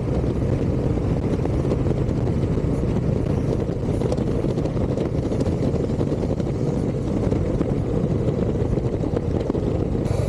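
Harley-Davidson Dyna Super Glide Custom (FXDC) V-twin engine running steadily while the motorcycle cruises along at an even speed.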